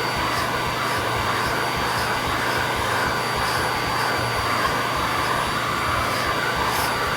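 Vacuum cleaner running steadily as it is drawn over a cat's coat to suck up shed fur, its pitch wavering slightly.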